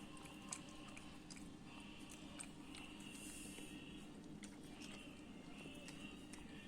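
Cat eating egg from a bowl: faint, irregular wet chewing and smacking clicks over a low steady hum.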